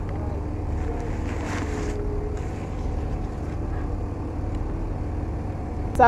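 Steady low background rumble, with faint voices in the distance.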